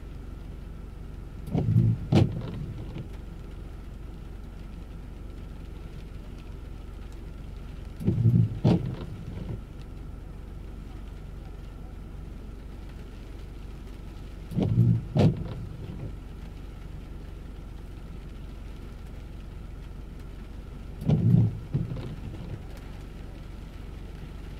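Car windshield wipers on an intermittent setting, making four sweeps about six and a half seconds apart, each a quick double thump with a click as the blades go out and back. Under them runs the steady low hum of the car, heard from inside the cabin.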